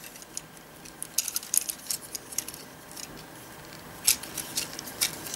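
Hard plastic parts of a Transformers Prime Deluxe Ratchet action figure clicking and rattling as it is handled, the arm pieces being snapped into place. A string of small sharp clicks, bunched about a second in and again about four seconds in.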